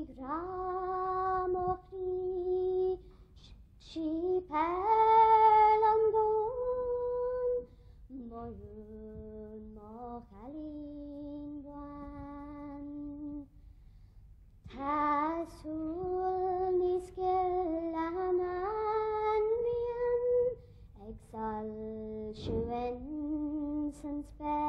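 A young girl singing solo and unaccompanied: phrases of long held notes with pitch glides, broken by short pauses for breath.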